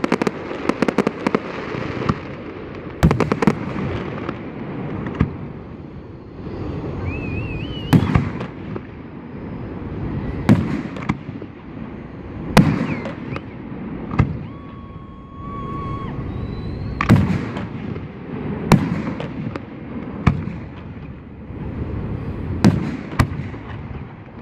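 Fireworks display: aerial shells bursting in a string of sharp booms every second or two, with quick runs of crackling near the start and a few faint whistling tones in between.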